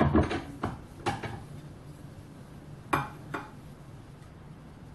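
Steel bar stock and a steel tube clanking and clinking against each other and a cast-iron bench vise as a hard steel sample is set up for a ball-bounce hardness test. There are several clanks in the first second or so, then two sharp metallic taps about three seconds in.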